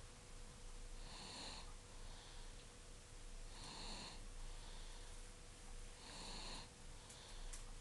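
A sleeping young girl snoring softly, one snore about every two and a half seconds, three in all. A few faint clicks come near the end.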